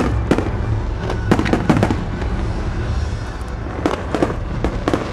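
Aerial fireworks shells bursting: a string of sharp bangs, several close together in the first two seconds and another cluster near the end.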